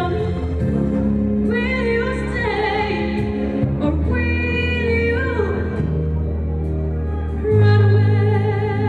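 A woman singing a ballad live into a microphone over sustained accompaniment chords. Her voice comes in about a second and a half in, with vibrato on held notes, and a louder deep bass note enters near the end.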